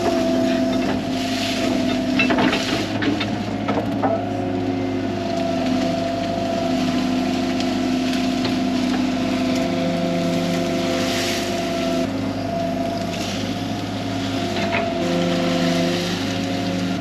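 A 13-tonne excavator's diesel engine running under hydraulic load. Its tone shifts every few seconds as the boom and bucket work, with a few clanks about two and four seconds in.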